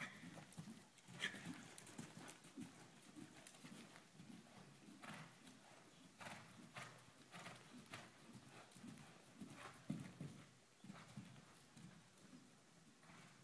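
Faint hoofbeats of a horse cantering on the soft dirt footing of an indoor arena: a steady run of dull thuds.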